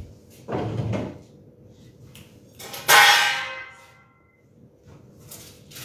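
A softer thud about half a second in. Then, about three seconds in, a refrigerator door shuts with a loud bang and a ringing rattle that dies away within about a second.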